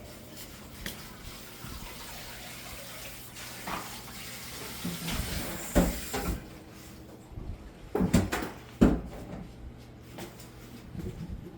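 A steady hiss like running water that stops about six seconds in, with several sharp knocks, the loudest around eight and nine seconds in.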